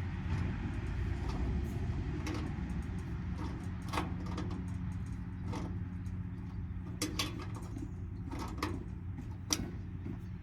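Scattered sharp clinks and knocks of metal parts being handled while an air-conditioning unit is taken apart for scrap, about a dozen of them, over a steady low hum.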